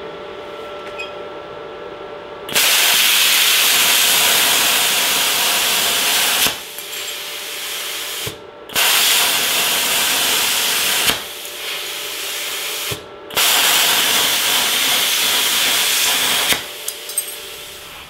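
Hitbox HBC45 IGBT plasma cutter cutting steel strip: three loud, steady hisses of the plasma arc and its compressed air, each three to four seconds long. A quieter air hiss runs between them.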